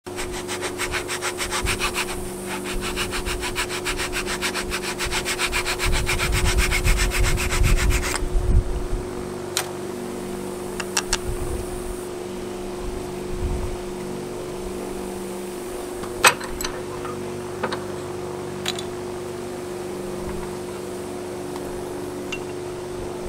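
Hand sanding: sandpaper rubbed in quick, even strokes over work clamped in a bench vise for about eight seconds, then stopping, followed by a few light clicks and taps of tools being handled. A steady low hum runs underneath.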